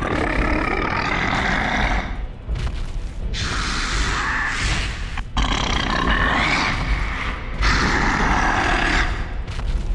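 Sound-designed monster growls and roars: about four long, drawn-out roars in a row, each around two seconds, over a deep, steady low rumble.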